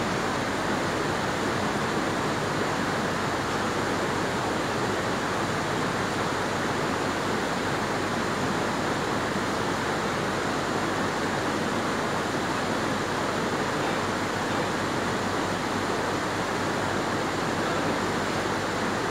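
Steady rushing of a shallow, rocky river over rapids, with a Cat 320D excavator's diesel engine running faintly underneath.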